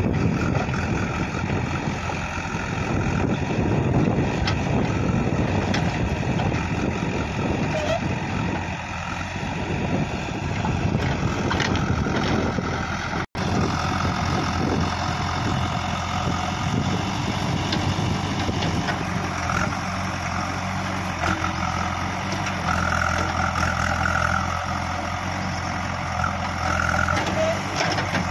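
JCB 3DX backhoe loader's diesel engine running under load as the backhoe digs and rips up scrub, its note swelling and easing with the work. The sound cuts out for an instant about halfway through.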